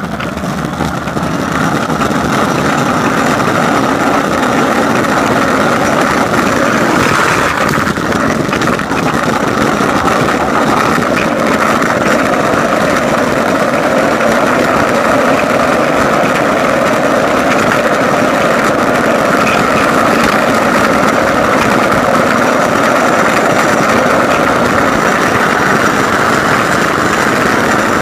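Loud, steady rushing of wind and tyre noise on a fast ride down a steep asphalt street, with wheels rolling hard on the pavement. It builds over the first couple of seconds and then holds.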